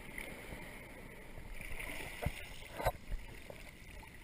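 Shallow surf water sloshing around a GoPro held at the waterline, heard muffled through its waterproof housing, with two short knocks a little past halfway.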